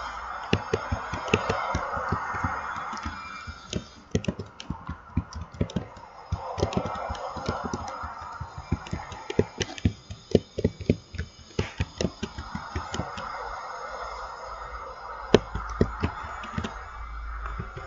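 Ocean waves surging in and drawing back about every five or six seconds, with many sharp, irregular clicks and taps over them.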